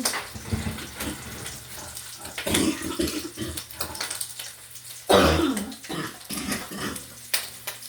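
Oven door and rack being handled while the buns are checked under the broiler: a few scattered clicks and knocks, with a louder clatter about five seconds in, over a low steady hum.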